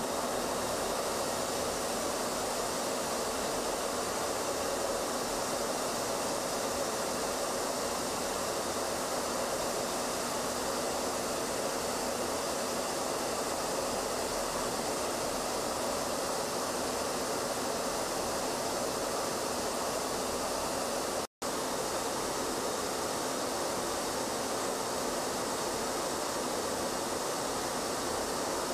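Steady rushing roar of jet aircraft in flight, even and unchanging, cut off for an instant once about 21 seconds in.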